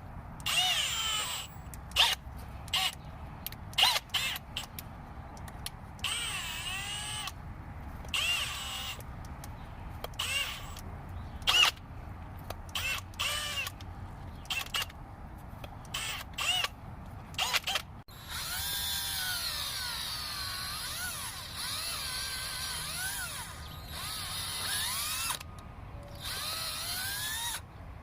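Drill spinning a Power Planter auger bit into soil to bore bulb-planting holes, run in many short bursts with the motor whine rising and falling. About two-thirds of the way through it switches to longer, more continuous running.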